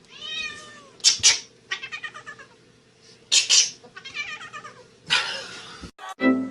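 A cat meowing and yowling: three drawn-out, wavering calls, mixed with several short, harsh noisy bursts that are the loudest sounds.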